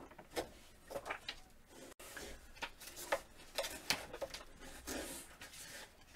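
Sheets of heat transfer vinyl being handled, with soft, irregular crinkling and rustling.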